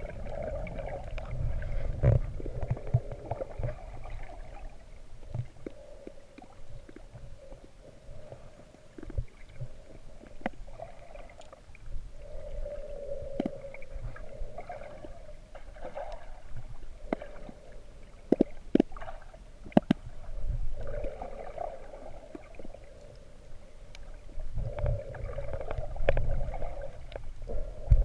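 Muffled underwater sound picked up through a GoPro Hero3's waterproof housing: a low rumble with swells of a mid-pitched hum that come and go, and scattered sharp clicks, several close together about two-thirds of the way through.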